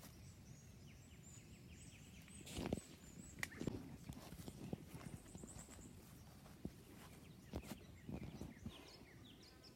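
Footsteps on a bush track: soft, uneven crunches and knocks, roughly one a second, over faint outdoor background.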